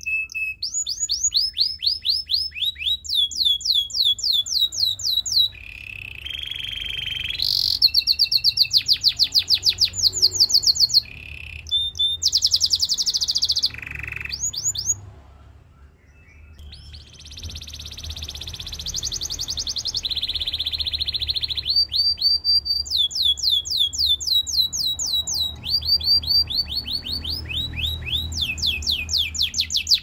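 Canary singing: rapid rolls of repeated downward-sweeping notes, several a second, broken up by short steady whistled notes. The song drops away briefly about halfway through, then resumes in fast rolls.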